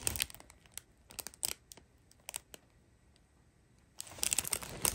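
Clear plastic film on a diamond painting canvas crinkling as the canvas is handled: scattered short crackles, a quiet moment in the middle, then a denser run of crinkling near the end.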